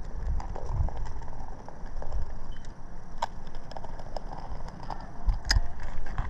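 Low, uneven rumbling with a few sharp clicks and light scraping as roofing caulk is applied to seal asphalt shingles back down.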